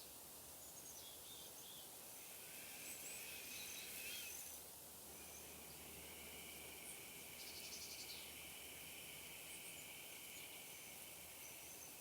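Faint outdoor nature ambience: a steady high insect trill through the second half, with a few short, high bird chirps before it over a soft background hiss.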